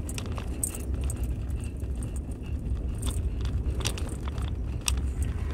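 Steady low road and engine rumble inside a moving pickup truck's cab, with scattered light clicks and rattles.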